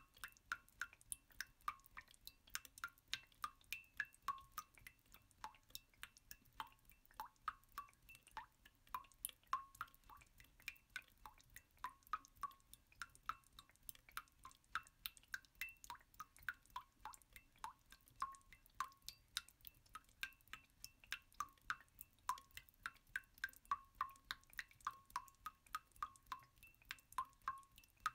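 Water dripping: soft, irregular plinking drops, about two or three a second.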